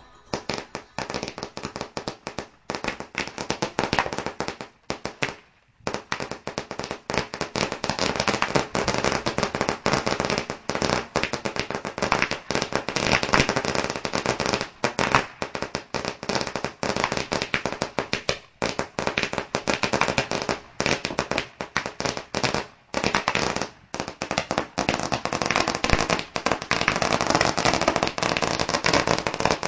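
Fireworks going off in a dense, continuous barrage of rapid crackling pops and bangs, many a second, with a few brief lulls, the longest about five seconds in.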